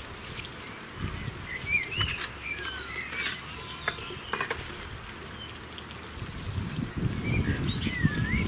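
Small birds calling outdoors in short rising and falling chirps, in two spells. From about two-thirds of the way in, a low scratchy rubbing builds up: emery paper working on magneto contact-breaker points.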